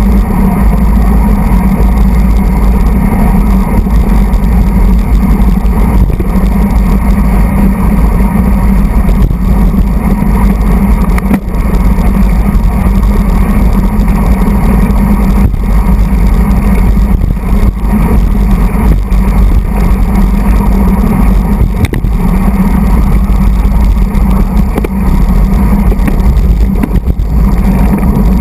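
Loud, steady wind rumble over a handlebar-mounted action camera's microphone on a road bike moving at race speed, with road vibration underneath.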